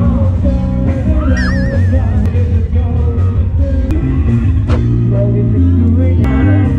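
Background music with a steady bass line, with a short warbling tone about a second and a half in.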